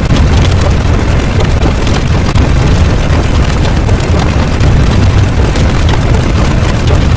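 Loud, dense rumbling noise with a heavy low end and no clear beats or tones, like explosion sound effects layered on top of one another.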